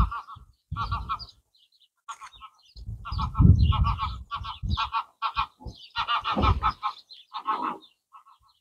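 Geese honking in a quick series of short, repeated calls that thin out near the end, with gusts of wind rumbling on the microphone.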